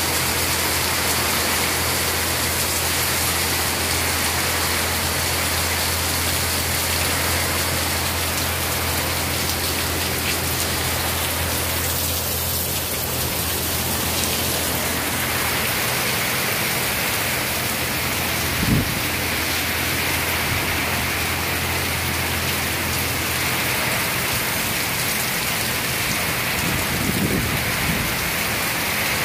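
Heavy rain pouring down steadily onto concrete and the yard, a dense even hiss of a downpour. A single brief thump sounds about two-thirds of the way through.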